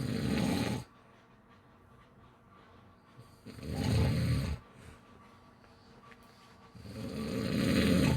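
A sleeper snoring: three rattling snores about three and a half seconds apart, each lasting about a second, with quiet breathing between them.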